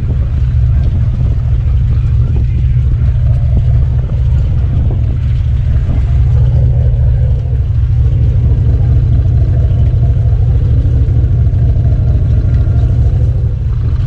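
Fishing boat's engine running steadily at idle, a constant low rumble.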